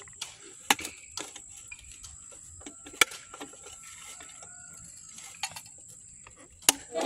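Scattered light rustles and clicks of hands handling a mesh insect net and a caught grasshopper, over a faint steady high-pitched hiss.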